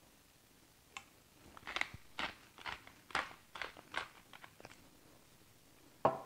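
Hand-twisted pepper mill grinding black peppercorns: a run of short, crunchy grating strokes for about four seconds, then a sharper knock near the end.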